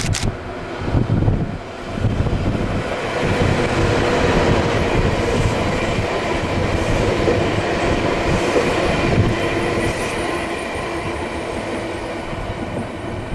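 A DE10 diesel-hydraulic locomotive passes hauling unpowered Y500 series electric train cars. First comes the locomotive's diesel engine with a low rumble, then the towed cars' wheels rolling over the rails. The sound eases off a little near the end.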